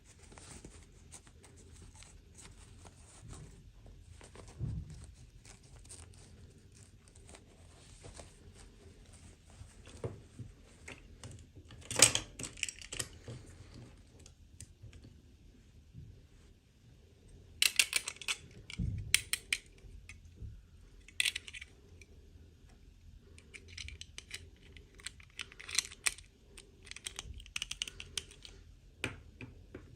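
Miniature toys and their plastic packaging being handled and unwrapped: scattered light clicks and taps with short rustling bursts, the loudest about twelve seconds in and again around eighteen seconds in, plus a couple of soft thumps.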